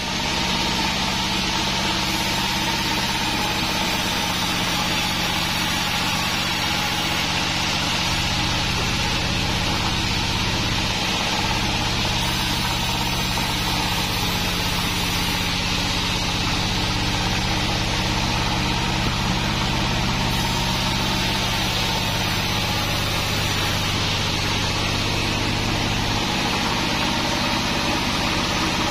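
Band sawmill running steadily, belt-driven by a stationary engine: an even machine hum with a constant whine over it. A deeper drone joins for much of the middle stretch.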